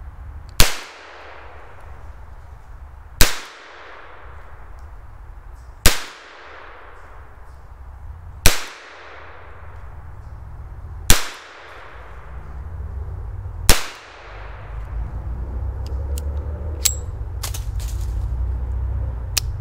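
Japanese Type 26 top-break revolver fired six times, one shot about every two and a half seconds, each report followed by a short echo. Then a few light metallic clicks as the action is broken open, over a low rumble.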